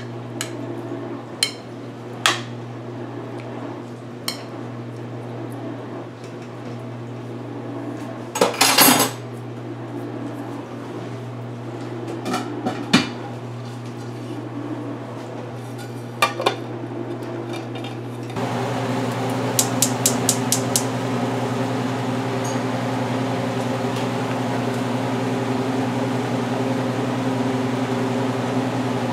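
A utensil clinking against a bowl while raw chicken pieces are mixed in it, a few scattered sharp clinks over a steady low hum. About eighteen seconds in the sound changes to a louder steady hum with a quick run of clicks.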